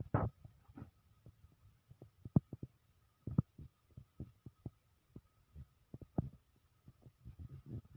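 Irregular soft low thumps and a few sharper clicks, the handling noise of a phone being moved around by hand, with a faint steady high tone underneath.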